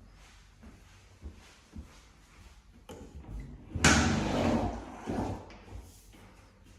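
A sharp knock about four seconds in, then about a second of sliding, rubbing noise and a smaller knock: a door or fitting in the apartment being handled.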